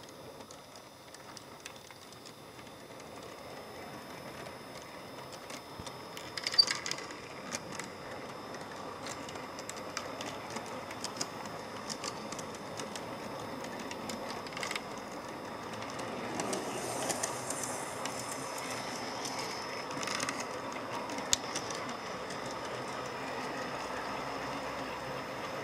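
Garden-scale model train rolling along its track, heard up close from a car in the train: a steady rolling rumble of wheels on rail that grows slowly louder, with scattered sharp clicks, the loudest about six seconds in.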